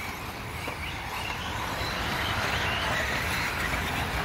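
Electric 1/8-scale RC buggies running on a dirt off-road track: a faint wavering electric-motor whine over a steady low rumble.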